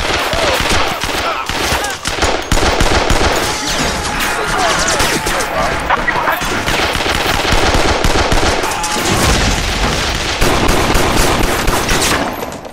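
Long, sustained automatic gunfire: rapid machine-gun shots run almost without a break and stop suddenly near the end.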